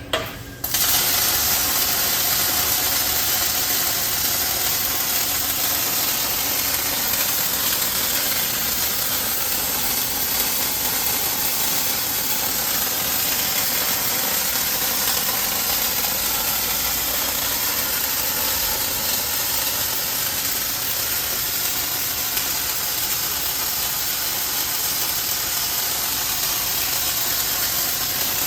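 Two welding torches on an automated weld-lathe arcing steadily on a turning conveyor roller: a loud, even welding hiss that starts abruptly under a second in, just after a couple of brief crackles.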